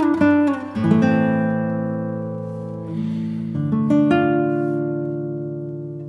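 Acoustic guitar music: a few quick plucked notes, then chords left to ring and slowly fade, with a new chord struck about four seconds in.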